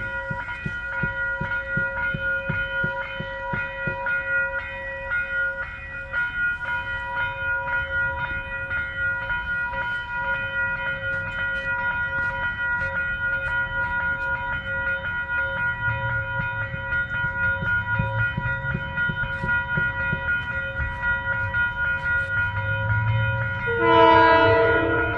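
Railroad grade-crossing bell ringing steadily with a low train rumble building. About a second before the end, a Metro-North train's horn sounds, loudest of all.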